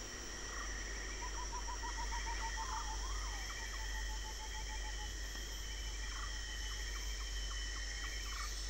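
Tropical rainforest ambience: insects keep up several steady shrill drones, while a bird gives a quick run of even piping notes, about eight a second, twice, with a wavering up-and-down whistle between the runs and another near the end.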